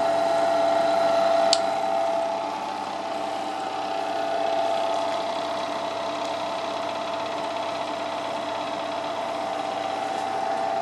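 Flake ice machine running: its Bitzer Type 1 open-drive refrigeration compressor and 750 W single-phase motor, just switched on, run steadily alongside the freezing drum's geared drive, a steady hum with a held tone. The refrigerant circuit is only starting up. One sharp click about a second and a half in.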